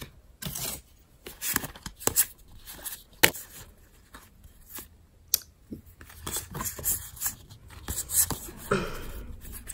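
Weiss Schwarz trading cards being slid off the front of a hand-held stack one after another, a string of irregular soft clicks and scrapes as each card snaps past the next.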